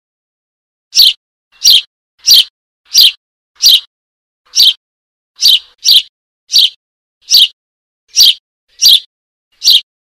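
Sparrow chick calling for its parent: 13 short, sharp chirps, loud and clear, repeated at an uneven pace of roughly one to two a second.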